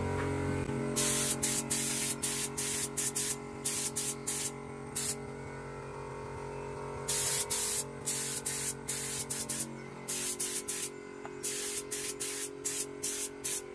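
Compressed-air paint spray gun hissing in many short bursts as its trigger is squeezed and released, with a pause of about two seconds midway.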